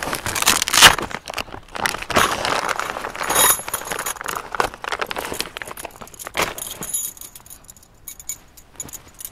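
A fabric bag rustling and crinkling as it is handled and unpacked, with busy crackling for about seven seconds, then dying down to a few small rustles and clicks.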